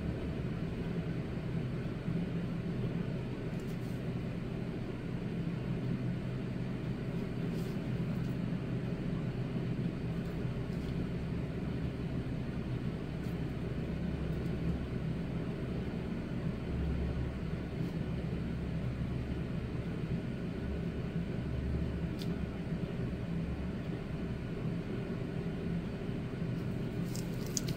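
A steady low mechanical hum with a rumble underneath that swells and fades, and a few faint ticks now and then.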